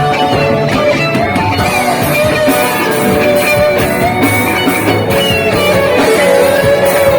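Live rock band playing an instrumental passage: guitar carrying a sustained, bending melody over drums and bass.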